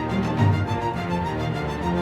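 Instrumental music with a moving bass line and sustained melody notes.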